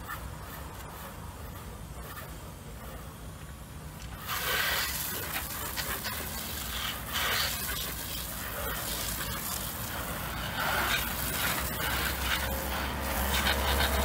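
Pressure washer spraying water onto foam-covered car bodywork to rinse it off; the hiss of the spray starts suddenly about four seconds in, over a steady low hum.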